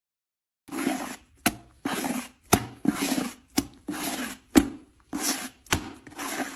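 Rhythmic rasping strokes of a hand tool scraping back and forth on a hard surface, such as wood, about ten strokes with a sharp click at the turn of several of them.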